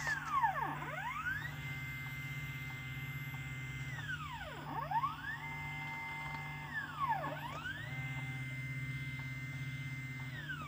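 Stepper motors of a homemade CNC pen plotter driving the pen along the sides of a rectangle. The whine rises in pitch as the axis speeds up, holds steady along each side, and falls as it slows for each corner, about three times over.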